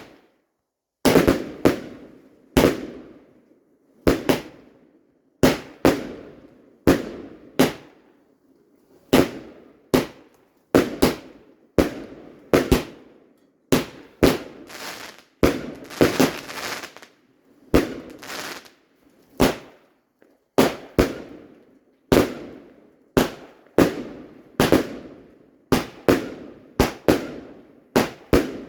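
Fireworks going off: a long run of loud bangs, roughly one a second and a little uneven, each dying away over about half a second.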